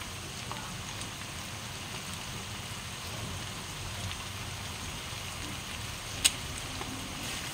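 Stir-fry sizzling in a stainless-steel wok, a steady hiss, with one sharp click about six seconds in.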